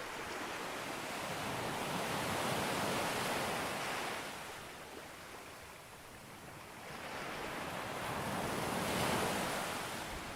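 Sea waves breaking on a beach: two swells of surf wash in and draw back, the second peaking near the end.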